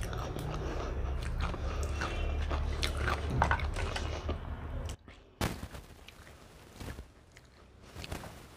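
Eating sounds: crisp fuchka (pani puri) shells crackling and crunching as they are handled and bitten, with chewing. A low steady hum under them cuts off suddenly about five seconds in.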